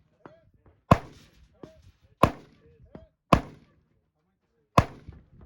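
Four rifle shots from an AR-15-style rifle, spaced about one to one and a half seconds apart, each a sharp crack with a brief ringing tail, with fainter short knocks between them.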